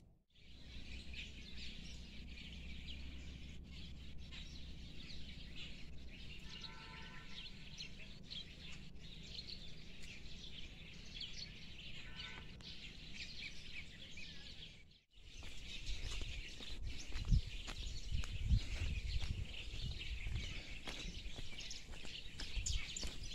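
Many small birds chirping continuously in dry scrub forest, a dense high twittering chorus. From about halfway through, low irregular thumps of footsteps on a dirt path and mic handling are added.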